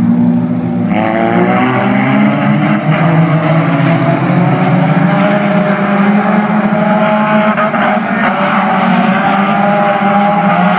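Several dirt-track race cars running hard around the oval, their engines at high revs; about a second in, a louder engine note rises as a car accelerates.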